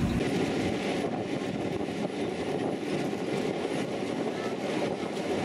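Narrow-gauge diesel locomotive running steadily under way, heard from an open carriage just behind it, with the rumble of the train rolling along the track.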